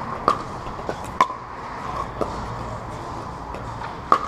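Sharp pops of pickleball paddles striking hollow plastic pickleballs: two loud ones in the first second and a half and another near the end, with fainter pops in between, over a steady background hum.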